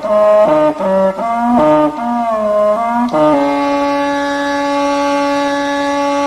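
Background music: a single wind instrument plays a slow melody, gliding between notes, then settles on one long held note about three seconds in.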